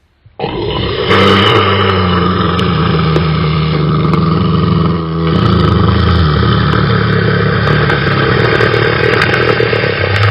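An engine running loudly and steadily, starting abruptly about half a second in, its low pitch shifting a little, with a brief dip about five seconds in.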